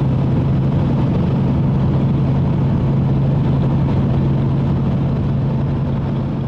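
Steady engine and road noise inside a moving vehicle's cabin, a low hum over a rushing noise, easing off slightly near the end.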